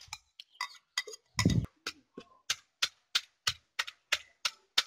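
A spoon scrapes and taps the last soaked glutinous rice from a bowl into a stone mortar. About two seconds in, a wooden pestle starts pounding the rice, at a steady rate of about three strokes a second.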